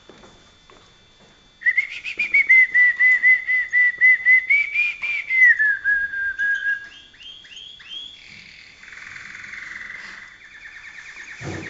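Malinois (Waterslager) song canary singing: after a short pause, a loud run of rapid repeated notes, about six a second, that slides a little lower, then quicker higher notes and a softer rolling trill. A brief thump near the end.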